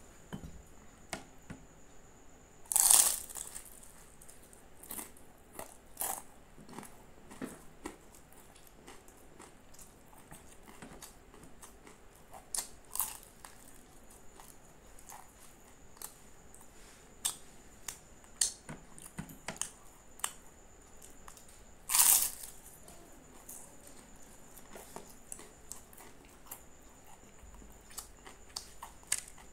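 Close-miked eating of a crispy puff-pastry aloo patty: flaky crust crunching and crackling as it is bitten and chewed, with many small crackles and mouth clicks. Two loud crisp crunches stand out, about three seconds in and about twenty-two seconds in.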